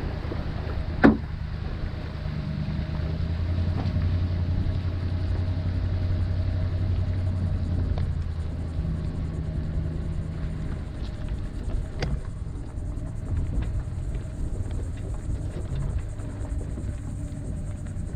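Ram pickup towing a boat on its trailer, heard from the boat: the truck's engine and the rolling rig give a steady low rumble. There is a sharp knock about a second in and a smaller one near twelve seconds.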